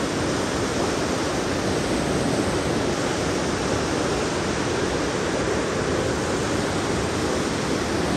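Fast mountain stream rushing over boulders in white-water rapids, a steady, unbroken rush of water.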